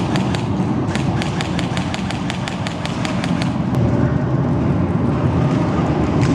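Airsoft gun firing on full auto: a fast, even string of sharp clicks, about seven a second, that stops about three and a half seconds in. A steady low rumble runs underneath.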